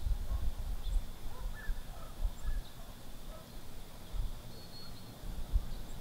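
Wind rumbling unevenly on the microphone, with faint scattered bird chirps.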